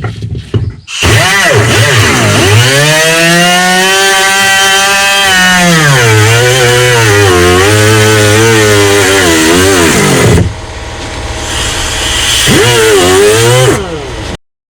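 Shop vacuum motor running loud, sucking up mouse-nest debris, its whine dipping and rising in pitch again and again as the nozzle takes in material. It cuts off suddenly near the end.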